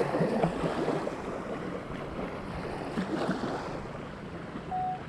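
Wind on the microphone and the wash of surf, with one short beep near the end.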